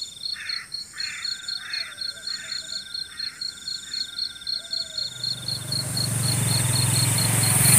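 Crickets chirping in a steady, fast high trill, with a short harsh call repeated about seven times, roughly every half second, over the first four seconds. From about five seconds a rushing noise with a low hum swells up and grows louder.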